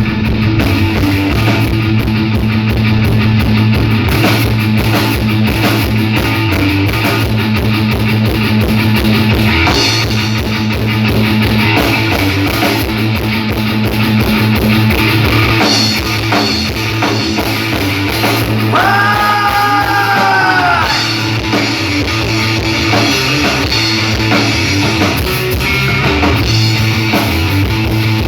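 Rock band playing live, with electric guitar, bass and drum kit at a loud, steady level. About two-thirds of the way in, a high note bends up and back down.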